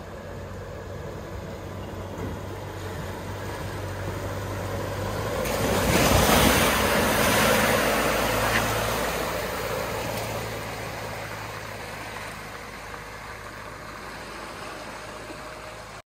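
A four-wheel drive's engine running steadily, with a rush of splashing water that swells about six seconds in and fades over the following seconds as the vehicle drives through the river crossing.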